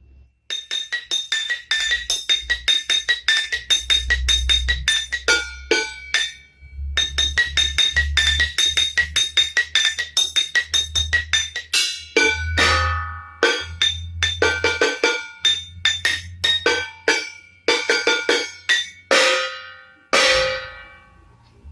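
Percussion music of fast, rhythmic strikes on ringing metal kitchenware over a low steady bass, with a short break about six seconds in and two long ringing strokes near the end.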